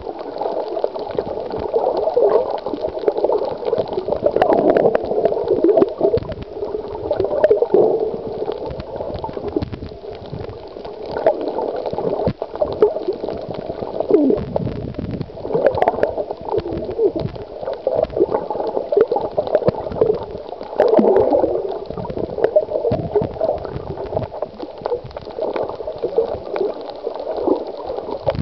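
Underwater sound picked up by a camera held below the surface: muffled gurgling and bubbling water that swells and fades.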